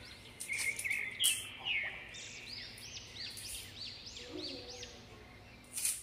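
Clear plastic sheet crinkling against a slaughtering machete's blade, with repeated high bird chirps throughout. Near the end there is a sudden sharp rustle as the machete is swung and slices through the plastic.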